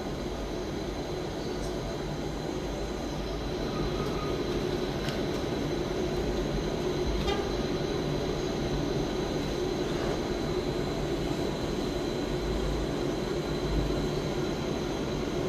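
Steady low rumbling noise with a faint constant high-pitched whine, and a few faint short sounds over it.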